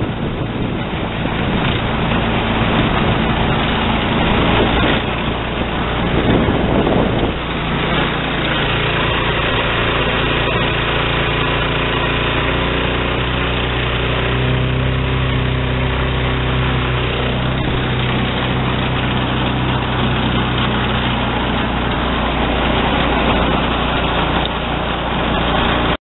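Harbor Freight Predator 212 cc single-cylinder engine on a long-shaft swamp-runner mud motor, running steadily under way. Wind rushes over the microphone for the first several seconds, then the engine's steady drone is clearest.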